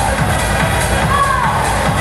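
Electronic dance music with a steady beat and a falling melodic line about a second in.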